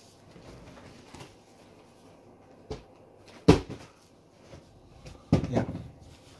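A few knocks from objects being handled and set down: a light knock about two and a half seconds in, a sharp loud one a second later, and another near the end, with a short "yeah" right after it.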